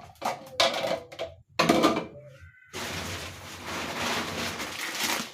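Grocery packets being handled and set down: a few short knocks and scrapes, then a steady rustle of plastic packaging from about halfway through.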